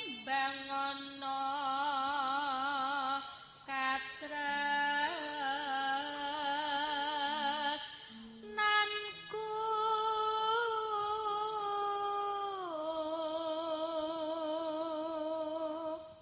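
A female singer performing a solo Javanese bawa, the unaccompanied sung prelude to a gamelan-style piece, in pelog pathet nem. She sings long held notes with heavy vibrato in a few phrases with short breaks, and slides down to a lower held note near the end.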